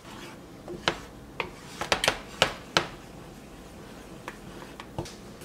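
Wooden spoon stirring thin strawberry purée in a small stainless-steel saucepan, with a string of sharp knocks of the spoon against the pan, most of them in the first three seconds and a few fainter ones near the end.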